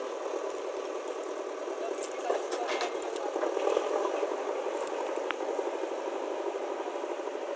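JCB backhoe loader's diesel engine running with a fast steady pulse as the machine drives over dirt, along with rattling. Sharper clanks come about two to four seconds in.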